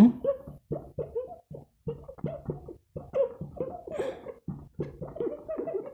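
Marker pen writing on a whiteboard, squeaking in a quick run of short strokes.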